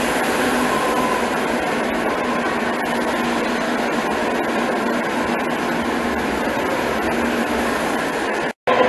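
Madrid Metro train moving past the platform at close range: a steady rumble of wheels and motors. It cuts off suddenly near the end.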